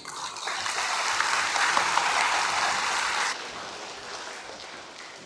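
Audience applauding and clapping, which drops off sharply a little over three seconds in, leaving a fainter clapping that dies away.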